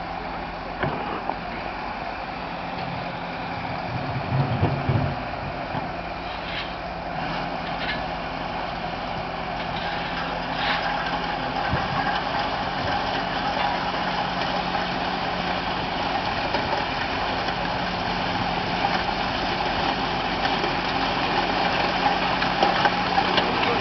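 Skid steer loader's engine running steadily, with a louder low rumble briefly about four seconds in and a few sharp clicks soon after.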